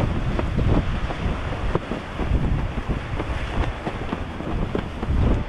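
Strong wind buffeting the camera's microphone: a gusty low rumble that swells and drops, with brief crackles.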